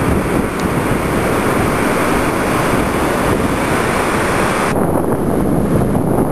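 Ocean surf breaking and washing on the shore, with wind buffeting the microphone. About four and a half seconds in, the high hiss drops away abruptly and the sound turns duller.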